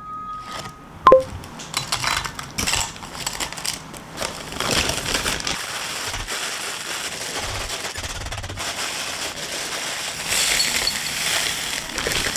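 A plastic zip-top bag crinkling and crackling as crisp Misura toast crackers are crushed into crumbs inside it. A single sharp clink sounds about a second in.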